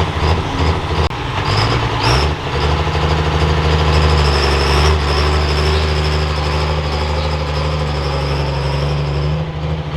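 Turbocharged diesel pickup pulling truck under full throttle, its engine note climbing in the first couple of seconds and then holding steady with a high turbo whistle over it. It eases off near the end.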